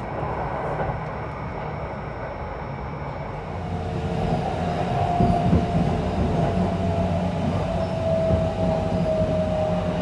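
Kintetsu 23000-series Ise-Shima Liner limited express heard from inside a car while running: a steady rumble of wheels on rail that grows louder about three and a half seconds in. A thin tone slowly falls in pitch over the second half.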